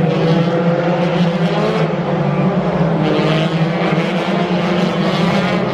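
Race car engines running loudly and steadily, a continuous mechanical drone with no single clear pass-by.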